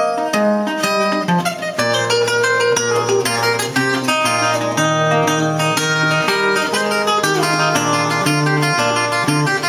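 Resonator guitar played fingerstyle: a march tune, plucked melody notes over held bass notes that change every second or so.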